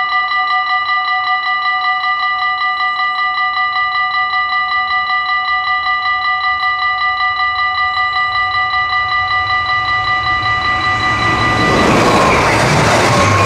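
Electric level-crossing bells of a Dutch automatic half-barrier crossing ringing in rapid, even strokes. About two seconds before the end, a passing electric passenger train comes in as a loud rush that drowns the bells.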